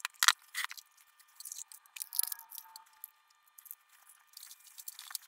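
Handling noise from an opened Technics SU-8055 amplifier chassis being turned over on a bench: a string of light clicks, taps and rustles, thickest in the first three seconds and again near the end.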